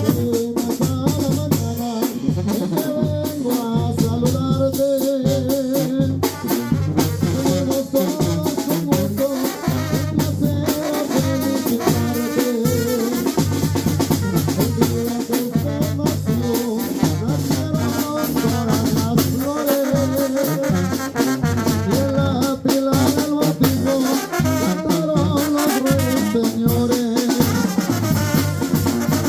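Live tamborazo band playing: a brass section carries the melody over a driving, steady beat of bass drum and snare.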